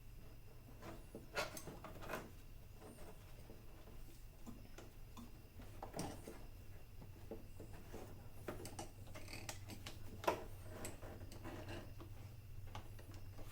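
Scattered light clicks, taps and knocks of hand tools and metal and plastic parts being handled, a few sharper knocks among them, over a steady low hum.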